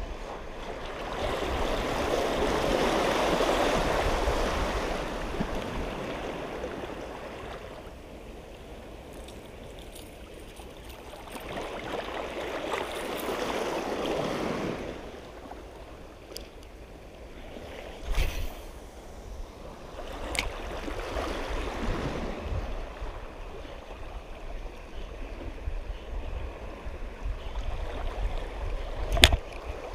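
Small waves washing over a rocky shoreline, with wind rumbling on the microphone. The wash swells up twice for a few seconds at a time, and a few short sharp clicks sound, the loudest near the end.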